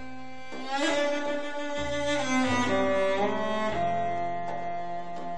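Solo cello music played from a vinyl LP on a turntable and heard through hi-fi loudspeakers: a bowed melody of held notes, some sliding into pitch, over low sustained bass notes.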